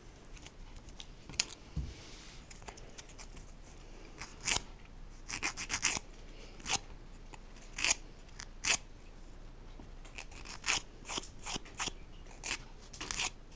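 Pink emery-board nail file rasping across a fingernail, filing off the excess of a stick-on nail polish strip. The strokes are short and come singly or in quick runs of a few, unevenly spaced.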